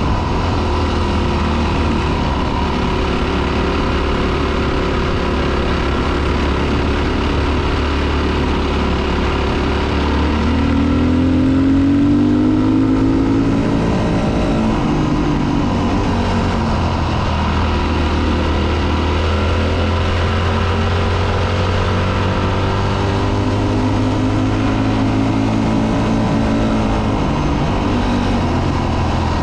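Four-stroke single-cylinder dirt bike engine running under way on a gravel track, its revs rising and falling a few times around the middle and again near the end, over a steady rush of wind and gravel noise.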